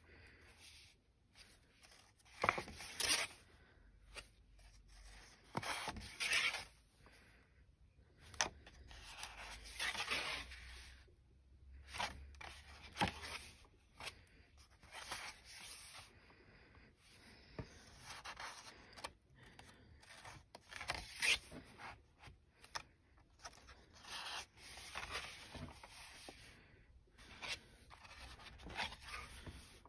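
Thick watercolour pages of an A5 Moleskine sketchbook being turned and pressed flat by hand. The paper rustles and swishes irregularly, every second or few, some strokes crisper than others.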